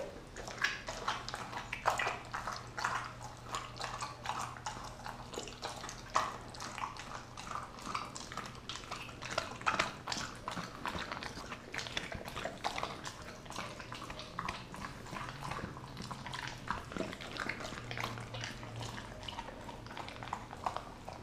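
Doberman chewing and tearing at a raw turkey breast, a continuous run of irregular bites and smacks.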